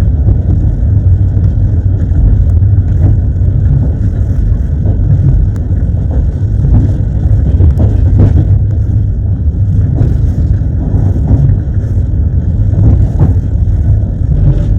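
Train wheels running on the rails, heard from inside a carriage: a loud, steady low rumble with scattered clacks at irregular intervals.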